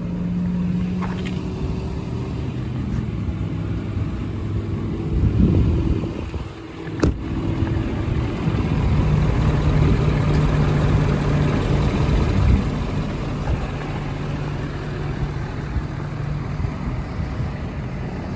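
Ford 6.7 Power Stroke V8 diesel idling steadily, with a single sharp knock about seven seconds in.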